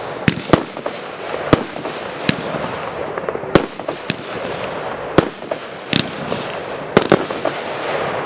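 Royal Fireworks 'Solid Stone' consumer fireworks cake firing: about ten sharp bangs at uneven spacing, sometimes two in quick succession, over a continuous rushing noise.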